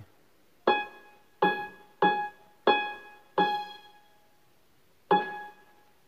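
Casio CTK-2550 portable electronic keyboard sounding a piano-like tone through its built-in speakers, the same note struck six times, each dying away before the next. These are test notes while its tones are stepped through one by one.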